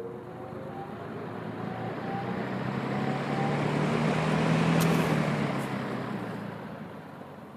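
A road vehicle passing by: its noise builds over about five seconds to a peak and then fades away, with a low engine tone under the loudest part. Two brief clicks come near the peak.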